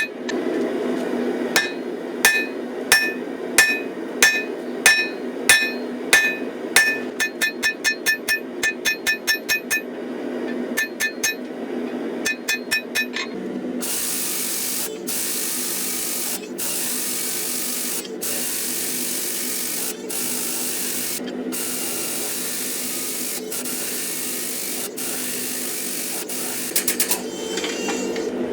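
Hammer blows ringing on a hot layered steel billet at the anvil, about two a second with a quicker run, as the Damascus billet is dressed out, over a steady low hum. About halfway through, the hammering gives way to a loud steady hiss broken by brief gaps.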